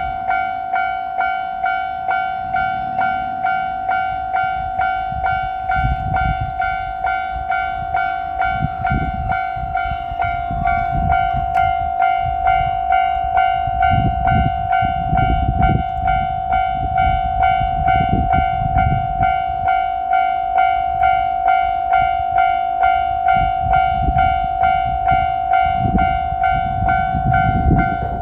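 Japanese railway level-crossing alarm ringing in an even, repeating electronic ding, about three rings every two seconds. From about six seconds in, a JR Shikoku 2700 series diesel limited-express railcar train passes over the crossing with a heavy low rumble that swells and fades, and repeated knocks of its wheels.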